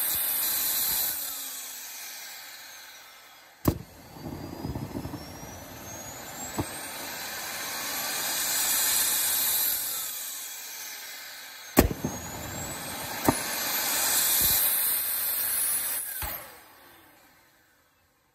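Homemade turbocharger-based turbojet on its first start attempt. A steady rush of air stops about a second in, then sharp pops and sputtering combustion come as the turbine whine rises and falls twice. It cuts off about 16 seconds in and spins down to silence.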